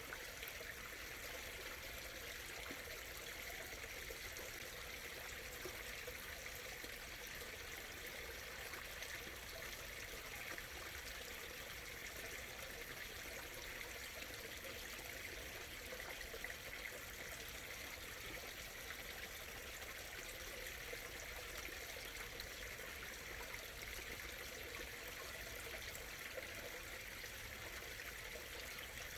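A small stream murmuring and trickling steadily over rocks, an even running-water sound with no changes.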